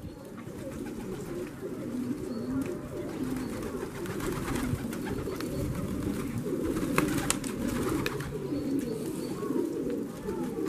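A flock of domestic pigeons cooing in many overlapping calls, with scattered sharp clicks as they peck grain from the ground.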